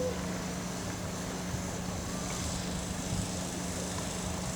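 Steady vehicle running noise with a constant low hum and an even rush of road or wind noise.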